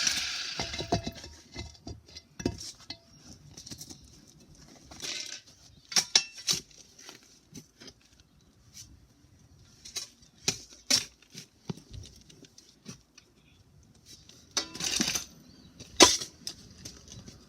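Scattered knocks, clicks and scrapes of digging by hand in soil and broken concrete to expose an old drain pipe, with two longer scraping strokes about five seconds in and again near the end.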